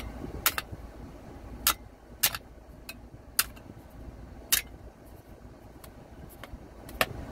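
About ten sharp metal clicks at irregular intervals as a clipboard's metal clip is levered against the crown cap of a glass Coke bottle, which stays on.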